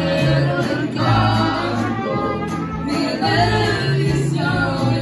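Mariachi band playing and singing together, several voices over guitars, harp and violin, with a bass line of held low notes that changes every second or so.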